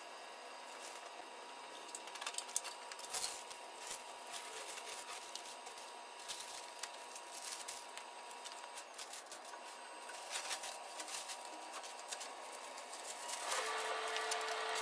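Scattered light clicks and crackles over a faint steady hum. Near the end a louder steady hum with a held tone comes in.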